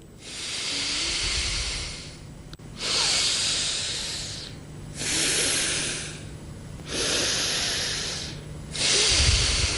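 Anulom vilom (alternate-nostril) pranayama: a person breathing long and audibly through one nostril at a time, in and out in turn. Five hissing breaths of about a second and a half each, with short pauses between them.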